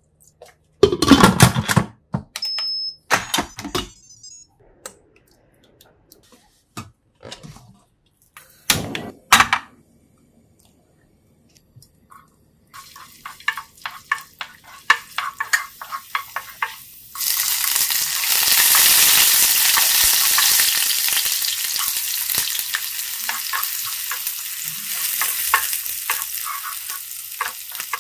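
A few loud knocks and clatters, then oil frying in a pan with a wooden spatula ticking against it as ginger strips are stirred. About two-thirds of the way through the sizzle grows much louder and stays steady as more food goes into the hot oil.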